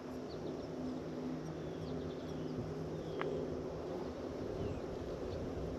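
Outdoor ambience at the water's edge: a steady low hum with a few short, faint, high bird chirps scattered through it, and one brief sharp chirp about three seconds in.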